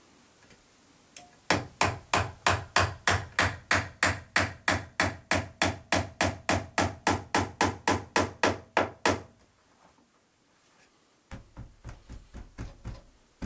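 Claw hammer driving nails into wooden window trim: a steady run of blows, about four a second for some seven seconds, then after a short pause a lighter, quicker series of taps near the end.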